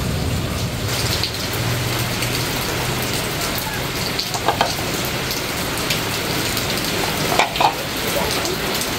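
Steady rain falling, an even hiss throughout. Two short louder sounds, like brief voice sounds, come through about four and a half and seven and a half seconds in.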